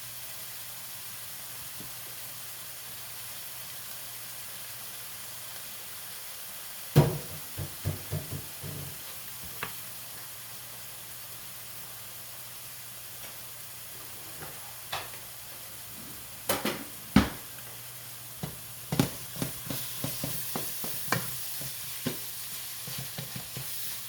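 Ground beef sizzling as it browns in a skillet, with a utensil scraping and knocking against the pan as it is stirred: a cluster of knocks about seven seconds in, and more from about sixteen seconds on.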